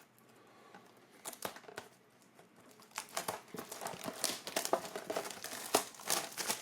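Trading card packaging being worked open by hand, crinkling irregularly, with the crackling getting busier about halfway through.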